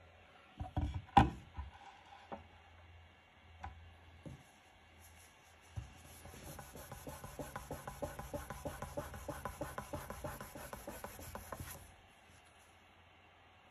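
Microfiber cloth rubbing back and forth over an oil-finished walnut board, wiping crayon marks off the finish in quick, rhythmic strokes for about six seconds. A few sharp knocks sound about a second in.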